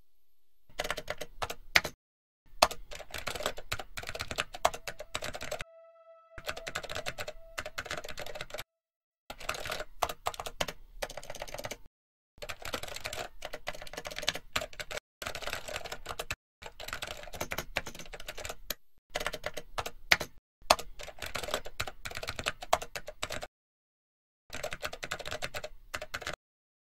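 Rapid typing on a computer keyboard, in runs of clattering keystrokes one to three seconds long broken by short pauses, with a few sharper key strikes standing out.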